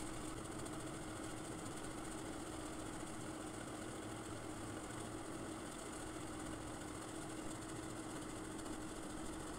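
Steady machine-like hum with a constant low tone and an even hiss, unchanging throughout, with no distinct strokes or clicks.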